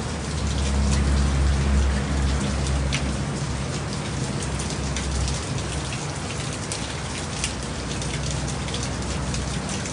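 Heavy rain pouring steadily, with scattered drips and patters. A low rumble sits under the rain for the first five seconds or so and then fades.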